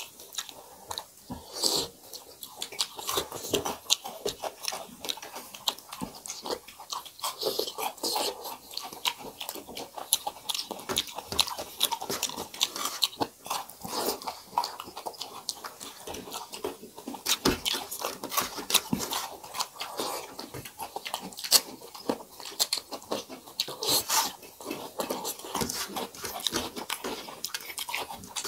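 Close-up eating sounds of people eating rice, dal and fried vegetables by hand: wet chewing and lip-smacking, a dense, irregular run of short clicks.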